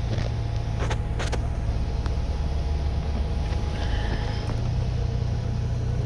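Steady low rumble of a car on the move, with a few faint clicks about a second in.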